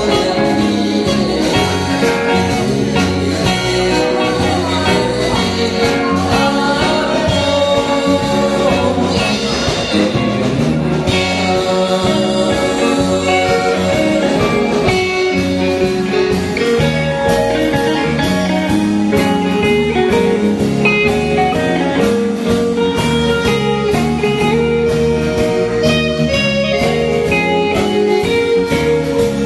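A man singing into a microphone with a live band behind him, drum kit and keyboards keeping a steady beat, all through the hall's amplification.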